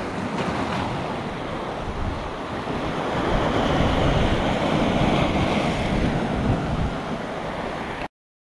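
Sea waves breaking and washing over a rocky shore, with wind buffeting the microphone. The surf swells louder a few seconds in, and the sound cuts off suddenly near the end.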